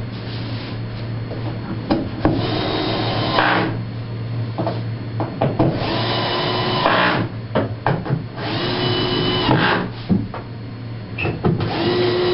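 A small power-tool motor, like a drill, runs in four short whirs of about a second each, a few seconds apart, over a steady low hum, with a few light knocks between the whirs.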